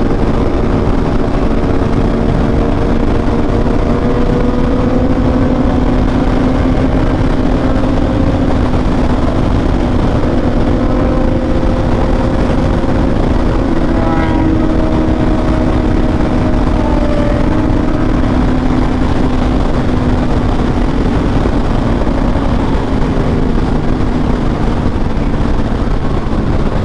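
Honda CBR1000RR SP sportbike riding at sustained high speed: a steady engine note under heavy wind rush on the microphone. The engine pitch climbs slightly over the first several seconds, then eases back.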